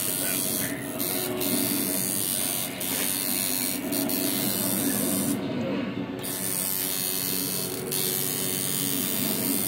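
Coil tattoo machine buzzing steadily as its needles work into the skin.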